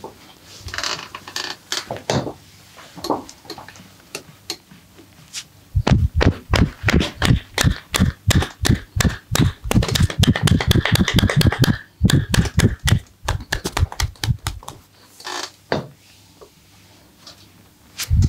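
Rapid percussive massage strokes: hands striking the body about seven times a second, starting about six seconds in and stopping near fifteen seconds, with a short break in the middle. A few scattered lighter taps come before the run.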